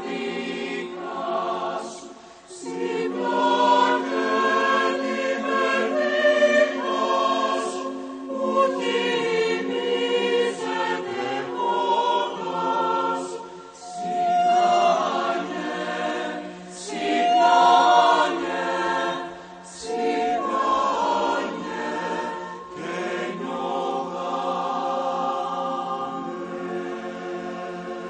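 Mixed choir of women's and men's voices singing in harmony, in sustained phrases with brief breaks between them, growing gradually quieter near the end.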